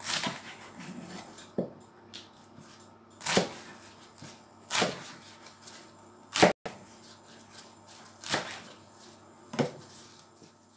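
Kitchen knife slicing leafy greens on a wooden chopping board: about six separate chops, a second or more apart, each a sharp knock of the blade through the leaves onto the wood, with a few lighter taps between.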